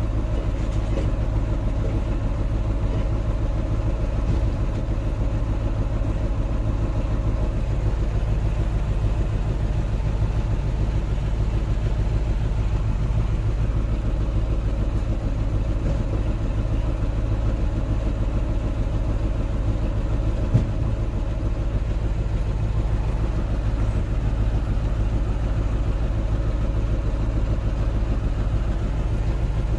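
Vehicle engine idling steadily, heard from inside the cab, with a single sharp knock about two-thirds of the way through.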